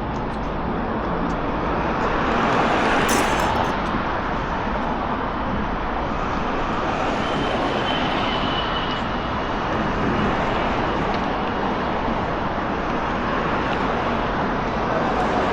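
Busy city street traffic: a steady wash of road noise from passing cars, swelling as a vehicle goes by about three seconds in.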